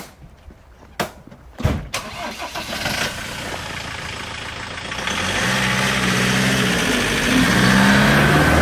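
A car door shuts about a second in and the lifted Land Rover Defender 110's engine starts, then the vehicle pulls away and drives up and past on its big mud-terrain tyres, the engine and tyre noise growing louder as it nears.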